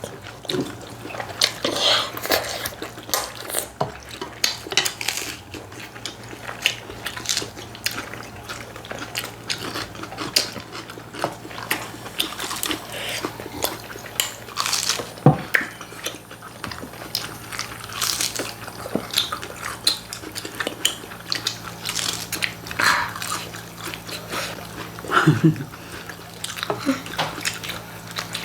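People eating at a table: biting and chewing food, with scattered clicks and taps of cutlery and dishes, over a low steady hum.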